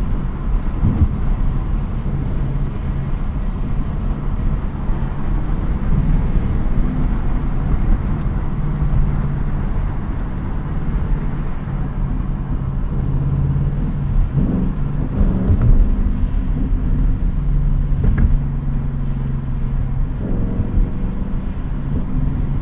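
2020 Ford Mustang Bullitt's 5.0-litre V8 running steadily on the move, with road noise underneath. The engine note shifts briefly about fifteen seconds in and again about twenty seconds in.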